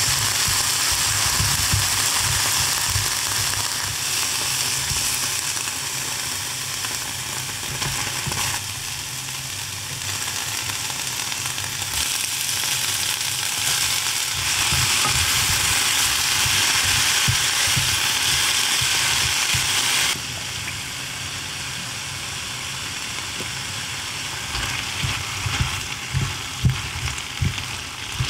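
Vegetables and tofu sizzling steadily in hot oil in a saucepan, later with mushrooms added. Near the end, chopsticks knock against the pan a few times as the food is stirred.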